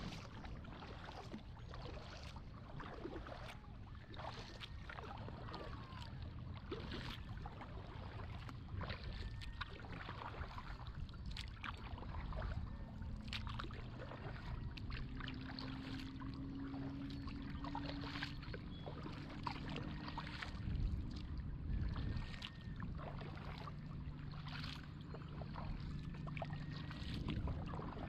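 Kayak paddling: irregular splashes, drips and knocks of the paddle and water against the hull over a low rumble of water and wind. A low steady hum comes in about halfway through.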